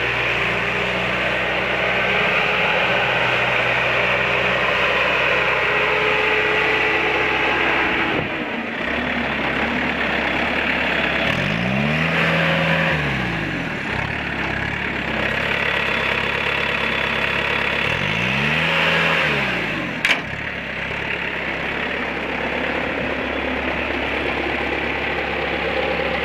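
Bobcat S300 skid steer's diesel engine running steadily, its speed rising and falling back twice in the second half, with a sharp click near the end.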